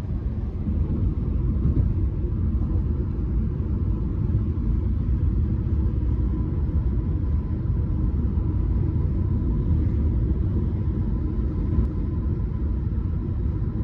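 Road noise heard inside a moving car's cabin: a steady low rumble of tyres and engine.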